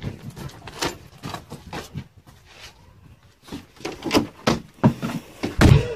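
Footsteps and knocking thumps of a child climbing stairs and going indoors, irregular, with a quieter stretch in the middle and heavier thumps near the end.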